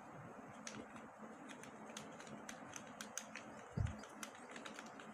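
Typing on a computer keyboard: faint key clicks at an uneven pace, a few a second. A single low thump comes a little before four seconds in.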